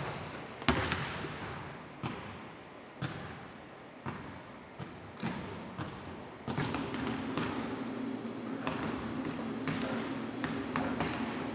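Basketballs bouncing on a hardwood court in a large, near-empty arena: single echoing bounces at irregular intervals. About halfway through, a low steady hum comes in beneath them.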